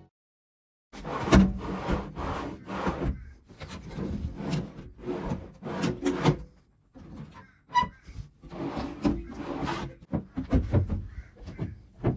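Newly fitted wooden drawers and lids being worked open and shut, scraping and knocking in their tight-fitting openings, with a short ringing tick about eight seconds in.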